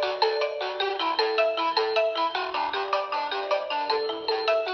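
Video doorbell intercom playing its electronic ringtone, a quick melody of clean chime-like notes, about four a second.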